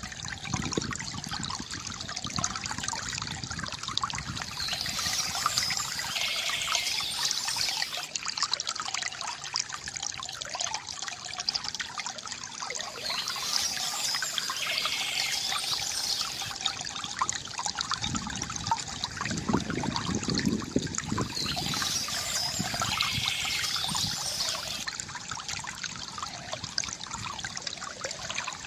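Water trickling and splashing steadily from a bamboo fountain, with bursts of birds chirping that recur about every eight or nine seconds.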